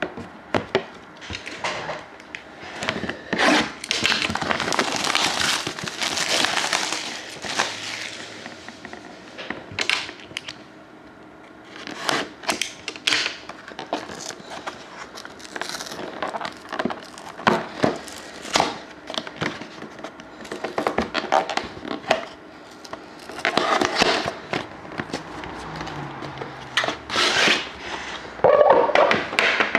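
Plastic wrapping crinkling and tearing and cardboard being handled, with scattered small knocks, as a sealed trading card box is opened. The rustling comes in irregular spells, longest a few seconds in.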